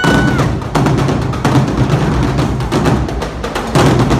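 Marching drumline playing a fast, loud cadence on snare and bass drums. A steady high tone ends about half a second in.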